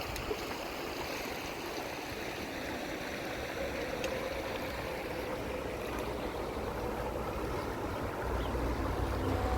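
River water flowing steadily in an even rush, with wind buffeting the microphone near the end.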